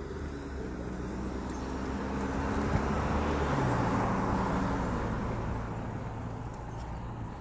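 A motor vehicle passing on the street beside the sidewalk: tyre and engine noise swell to a peak a little past the middle, the engine's hum dropping in pitch as it goes by, then ease off. One sharp click sounds just before the peak.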